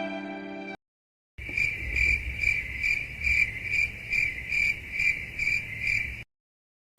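Crickets chirping in a steady rhythm, about two chirps a second, over a faint low rumble, starting about a second and a half in and cutting off shortly before the end. This is the stock cricket-chirp sound effect.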